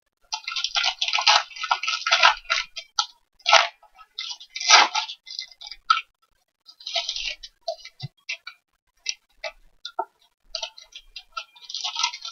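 Foil trading-card pack wrappers crinkling and rustling as the packs are handled, in irregular bursts with short pauses and a few single clicks.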